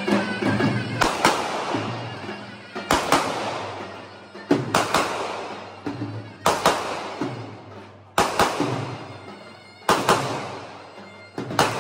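Davul bass drums struck in slow, heavy beats, about one stroke or quick double stroke every one and a half to two seconds, each ringing out and dying away before the next.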